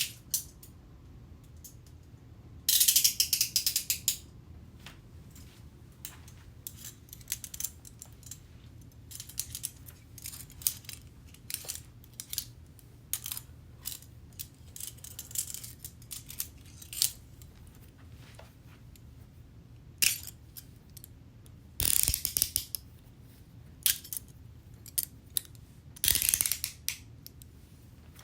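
Metal handcuffs ratcheting, a rapid run of clicks as the cuff's arm swings through its teeth. There are three loud runs, a few seconds in and twice near the end, with scattered single clicks and light metallic rattling between them.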